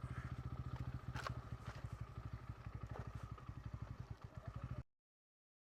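Motorcycle engine running with a steady, rapid putter, with a few light clicks over it. The sound cuts off abruptly near the end.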